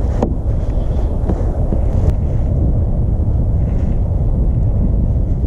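Wind buffeting the microphone: a steady low rumble, with a couple of faint clicks.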